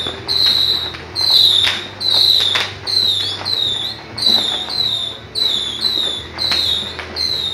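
New Year's fireworks and firecrackers going off, sharp bangs and crackles at uneven intervals. Over them a loud, high, slightly falling chirp repeats about twice a second throughout.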